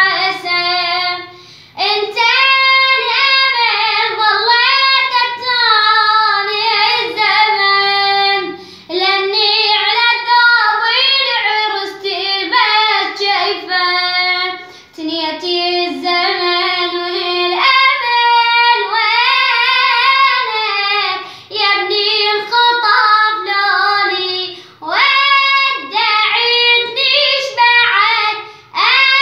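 A boy singing a Husseini lament in Arabic, unaccompanied, in phrases of a few seconds broken by short breaths.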